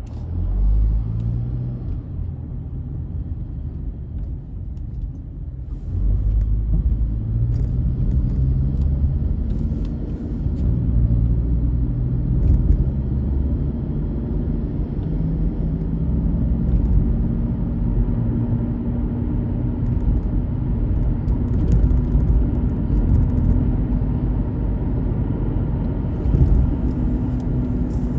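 A car driving on the road: steady low engine and tyre rumble, getting louder about six seconds in, with a faint steady drone running through the second half.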